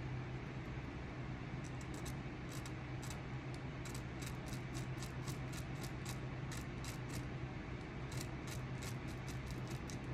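Small hand carving tool scraping and nicking a wooden walking stick in short, quick strokes, several a second in runs with brief pauses, over a steady low hum.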